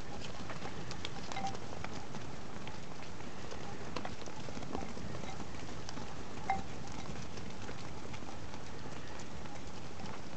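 A flock of ewes walking together over a dirt yard: a steady patter of many hooves with scattered small clicks, and one short, sharper sound a little past halfway.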